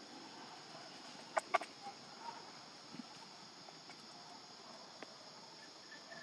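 Two short, sharp animal calls in quick succession about a second and a half in, over a faint steady drone of insects.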